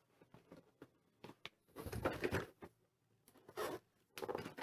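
Cardboard toy-track box being handled and turned over in the hands: scattered light taps and clicks, with a rustling scrape lasting about a second near the middle and shorter ones near the end.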